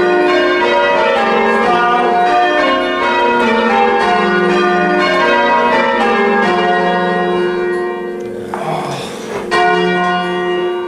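A ring of church tower bells rung full-circle in changes, the bells striking one after another in a steady, continuous sequence with overlapping ringing tones. A brief hiss cuts across the bells about eight and a half seconds in.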